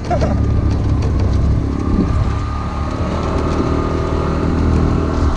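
Four-wheel-drive vehicle on the move: steady engine and road rumble, with a faint whine that climbs slowly from about two seconds in as it gathers speed.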